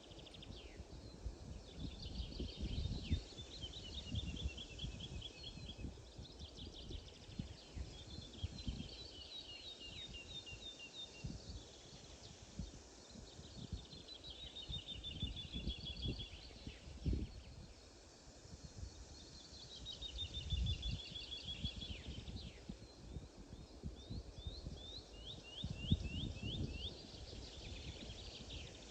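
A songbird singing the same phrase over and over: a quick string of high notes about two seconds long, repeated every few seconds. Underneath is a low, irregular rumble.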